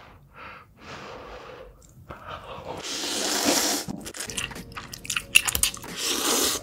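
Close-up eating sounds: instant noodles slurped in two long pulls, about three seconds in and near the end, with chewing and crunching clicks in between.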